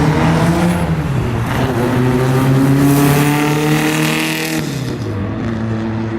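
A car engine accelerating, its pitch climbing slowly for several seconds, then dropping back sharply about four and a half seconds in as the throttle is let off.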